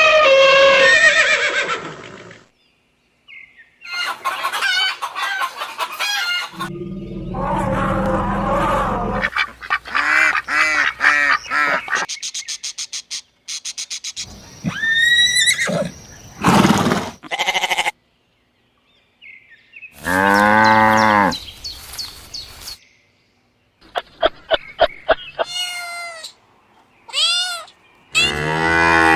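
A series of about eight short animal calls from different farm animals and birds, one after another. Each is cut off abruptly and followed by a brief silence.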